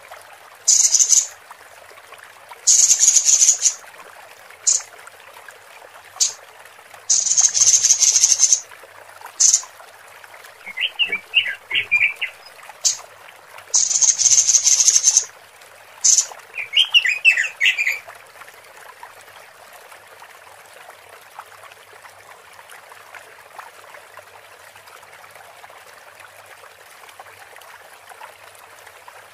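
Female Pekin robin (red-billed leiothrix) calls used to lure males: a dozen or so harsh, hissing rasps, from a short burst to about a second and a half each, with quick high chirps about 11 and 17 seconds in. After about 18 seconds only a faint background hiss remains.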